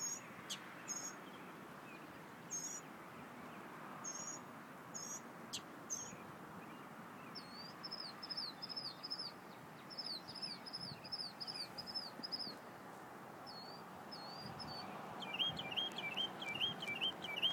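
Mockingbird singing in repeated phrases. First come short, high, separate notes, then one quick phrase repeated about eight times. Near the end a lower phrase is repeated rapidly, about four times a second. A steady low background noise runs underneath.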